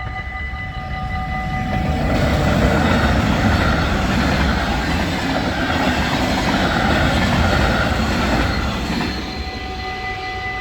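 Railexperts train 9903 passing over a Dutch level crossing: a loud rush of wheel-on-rail noise that swells about two seconds in and dies away near the end. The crossing's electronic warning bells ring steadily throughout, heard clearly at the start and end while the train is not drowning them out.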